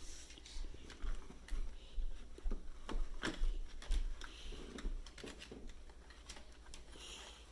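A toy doll being worked out of its plastic and cardboard packaging: scattered taps, clicks and crinkles, thinning out after about five seconds.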